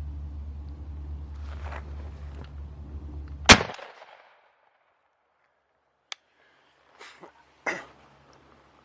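A single loud shotgun blast, fired at a Merriam's wild turkey tom, about three and a half seconds in, over a steady low rumble that stops with it. A few faint knocks and rustles follow near the end.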